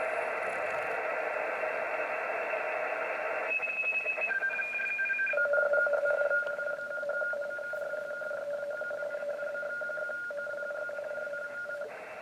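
HF radio receiver audio: band hiss, then a data signal of steady electronic tones comes in about a third of the way through, stepping in pitch twice before settling into two tones held together that flutter rapidly. Near the end the tones stop and only the hiss is left.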